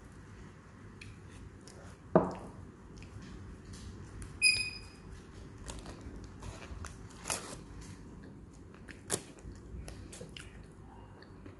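Close-up eating sounds from a paper-wrapped chicken sandwich: paper rustling, biting, chewing and small mouth clicks. A single loud knock comes about two seconds in, and a short high whistled chirp about four and a half seconds in.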